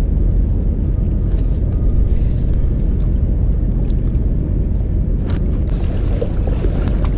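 Wind buffeting the action-camera microphone: a loud, steady low rumble. Faint clicks and handling knocks sound over it, with one sharper knock a little after five seconds in.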